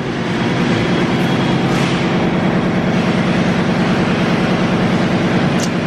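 Motorcycle engine idling steadily at an even pitch, with no revving.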